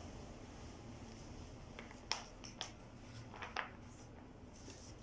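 Paper booklet being picked up and its pages turned: a few short, crisp rustles in the middle, the sharpest about two seconds in.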